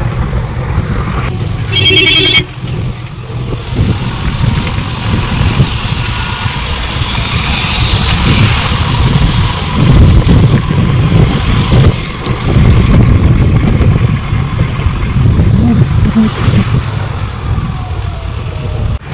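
Wind buffeting the microphone over the low rumble of a vehicle riding along a road, most likely a motorcycle. A short high-pitched beep about two seconds in.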